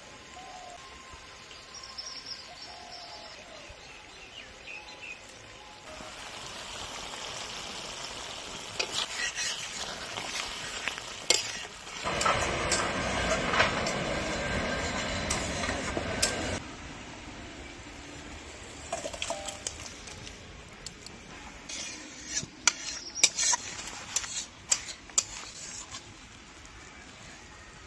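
A metal spatula stirring and scraping curry in a wok, with sizzling and sharp clinks of the spatula against the pan. In the middle comes a louder stretch of steady rushing noise that cuts off abruptly. Faint bird chirps can be heard at the start.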